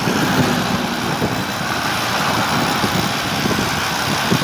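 Homemade electric velocipede under way on its 2 kW BLDC washing-machine motor, a steady rushing noise of the ride with irregular low knocks underneath.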